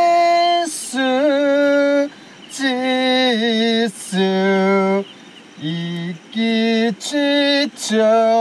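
A single voice singing a slow, unaccompanied melody of long held notes, with short breaks between phrases.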